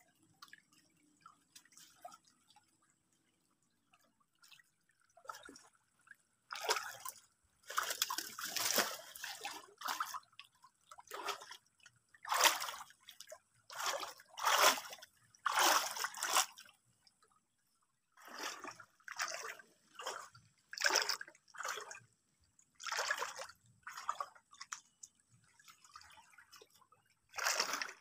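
Hands sloshing and splashing in shallow, muddy ditch water while feeling along the bottom and bank for fish: a few small drips and trickles at first, then from about six seconds in a run of separate splashes, roughly one a second.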